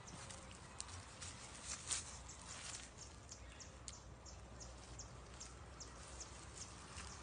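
Faint outdoor ambience: a run of short, high chirps at about three a second, with a few scattered ticks and rustles before them.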